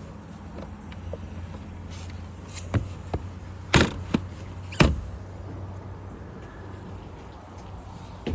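A steady low hum with a handful of sharp knocks and clunks in the middle, the loudest two about a second apart.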